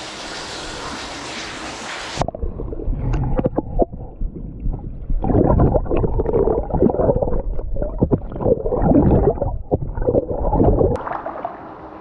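Rushing water of a hot-spring waterfall. About two seconds in, it switches abruptly to a loud, muffled gurgling and sloshing with irregular knocks, the sound of a camera held underwater in the hot-spring pool. The open-air rush returns about a second before the end.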